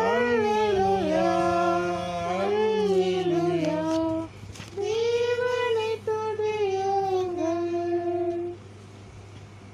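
Family voices singing the last lines of a Tamil Christian hymn in two phrases of long held notes. The singing stops about three-quarters of the way through, leaving a faint low hum.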